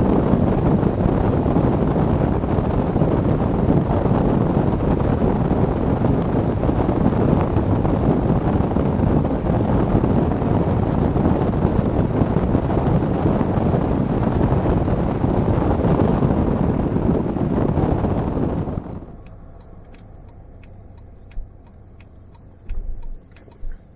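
A car driving at speed, heard from inside: a loud, steady rushing of road and wind noise that drops abruptly about nineteen seconds in to a quiet low hum with a few soft thumps.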